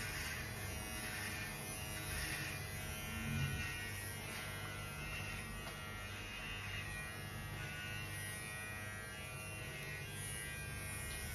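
Electric hair clippers running with a steady buzz while trimming short hair.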